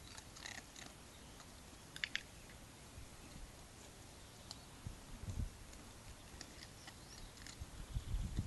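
Dog-training clicker giving a sharp double click about two seconds in, with fainter small ticks scattered through the rest. Soft low bumps of handling come near the end.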